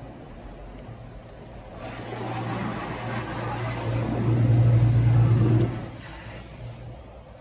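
Mark VII SoftTouch XT in-bay automatic car wash spraying water onto the car, heard from inside the cabin. A hiss of spray builds about two seconds in over a steady low hum, is loudest for a second or so near the middle, then drops away.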